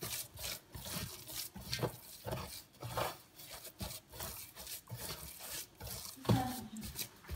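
Hands kneading moist bulgur and pepper paste for çiğ köfte against a dimpled stainless steel tray: soft, irregular squishing and scraping strokes, a few a second. A short louder sound comes about six seconds in.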